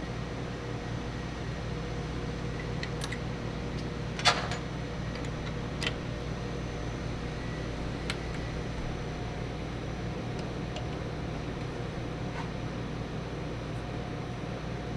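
Steady mechanical hum, like a shop fan, with one sharp metallic clank about four seconds in and a few lighter clicks, as metal parts and hand tools are handled while a crash bar is bolted on.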